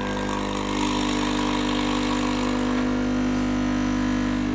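Delonghi Dedica's vibratory pump buzzing steadily while running through a hardware-store light dimmer, with water hissing out of the group head's shower screen. The buzz gets louder about a second in and then holds.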